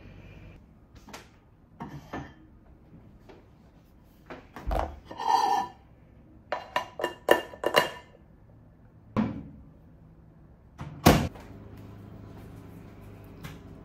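Kitchen handling sounds of a plastic food container and bowl: knocks, clatters and a short ringing clink as they are set down. Near the end a microwave door shuts with a loud thunk and the microwave starts up with a steady low hum.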